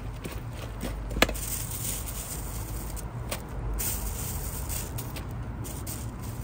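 Cooking at a street toast stall: metal utensils clicking and scraping on the hotplate, with one sharp click about a second in, over a steady low hum.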